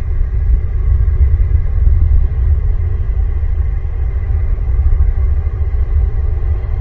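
A loud, steady low rumble with no clear strokes or rhythm.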